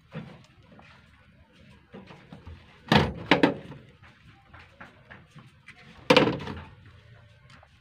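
Sharp knocks, with two close together about three seconds in and a single louder one about six seconds in, over faint handling noise.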